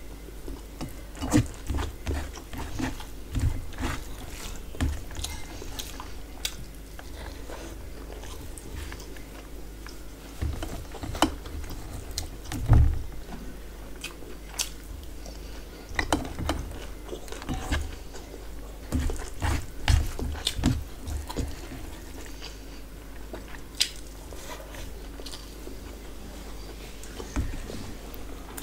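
Close-miked eating sounds: chewing and biting, with scattered sharp clicks and soft thumps as fingers mix rice and curry on a steel plate.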